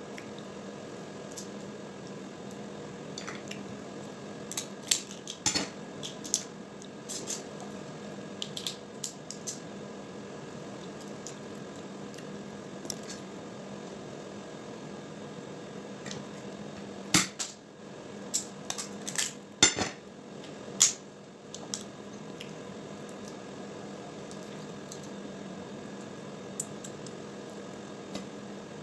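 Crab shell being cracked and picked apart by hand: scattered sharp cracks and clicks, a flurry about five seconds in and a louder cluster a little past the middle, over a steady low hum.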